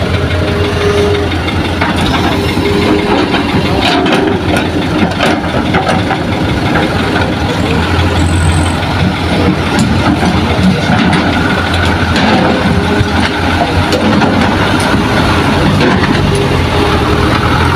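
Diesel engines of an Isuzu dump truck and a Hitachi hydraulic excavator running steadily, with the loaded truck pulling away and driving past near the end. A few short knocks come around four to five seconds in.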